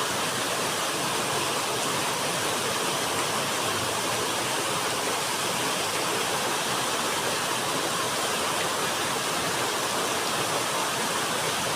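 Steady rush of water flowing at a dam, an even, unchanging noise.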